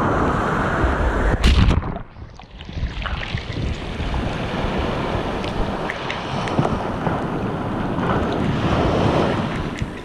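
Ocean surf breaking and washing up the shore. A wave breaks loudly about one and a half seconds in and falls away, then the wash builds again and swells near the end, with a light fizzing crackle of foam.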